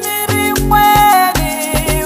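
Xitsonga gospel song: upbeat African dance music with a steady beat and deep bass notes under held melody lines.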